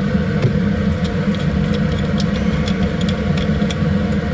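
Steady hum of a laminar flow cabinet's blower fan, with a scatter of light clicks from steel forceps and a culture tube being handled.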